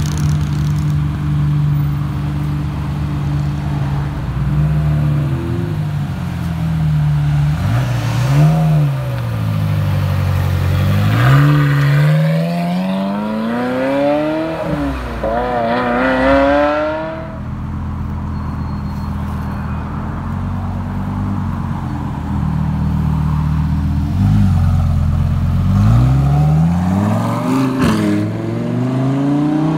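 Ferrari F355 Spider's V8 idling, then pulling away and revving up through the gears in three rising sweeps before it fades down the road. Near the end a Lamborghini Huracán's V10 revs up as it drives off.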